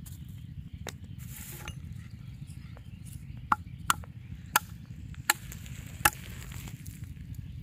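A bamboo pole striking freshwater snails against a brick to crack their shells: five sharp knocks about two-thirds of a second apart in the second half, over a steady low rumble.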